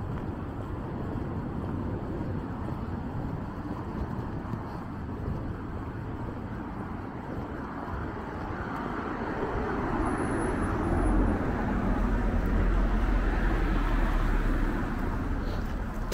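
Road traffic noise. A vehicle passes close from about ten seconds in, its low rumble the loudest part, then fades near the end.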